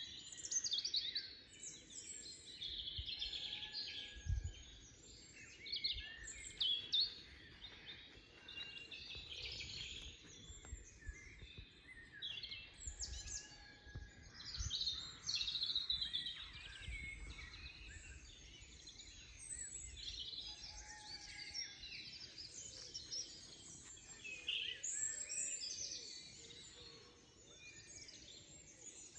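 Several songbirds singing at once in a busy chorus of overlapping chirps, whistles and trills, with a few low rumbles now and then.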